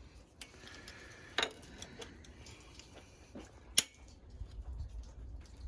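Scattered light metallic clicks and taps of hand tools and bolts while the valve cover is being unbolted from the engine, with one sharp click a little after halfway.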